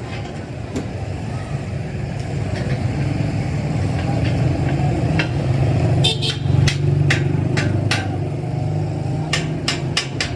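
A motor running steadily with a low hum, with a series of sharp knocks starting about six seconds in and several in quick succession near the end.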